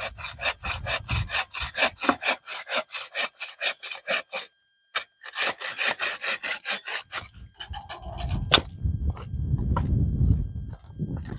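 Hand saw cutting through a dry branch in quick, even back-and-forth strokes, about four to five a second, with a short pause about four seconds in. The sawing stops about seven seconds in and gives way to a low rumble with a single knock.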